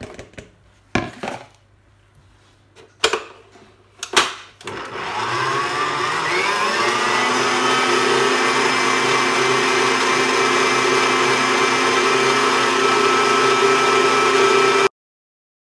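Electric mixer creaming butter and sugar: a few knocks, then about five seconds in the motor starts, its whine rising as it speeds up, and runs steadily until it cuts off suddenly near the end.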